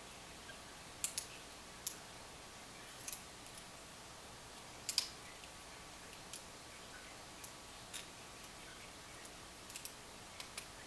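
Sharp, irregular clicks of a hook pick working the pin stack of a Kwikset deadbolt during single-pin picking, a dozen or so scattered a second or so apart, some in quick pairs.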